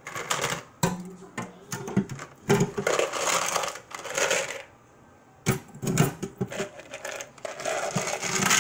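Ice clattering and rattling as it is tipped from a plastic bowl into a plastic pitcher, in several bursts with a short pause about halfway through.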